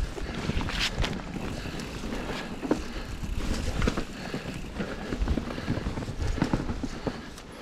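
Mountain bike riding down a rough trail: tyres rolling over the ground with frequent irregular knocks and rattles from the bike over bumps.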